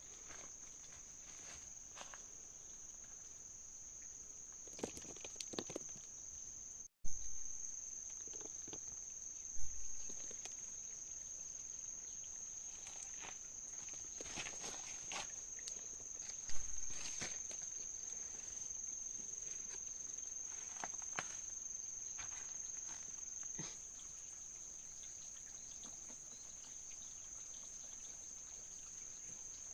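Insects calling in a steady, high-pitched drone, with scattered rustling and a few dull thumps close by.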